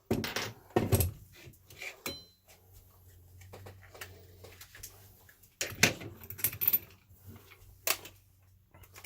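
Small metal tool bits clinking and clattering as they are handled and swapped, with a few sharp knocks near the start, about six seconds in and about eight seconds in.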